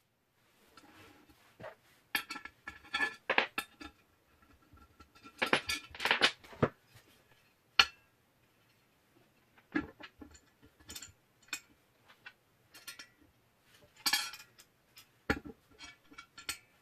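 Metal parts of an angle grinder cutting stand clinking and rattling as they are handled, in irregular knocks with brief metallic ringing.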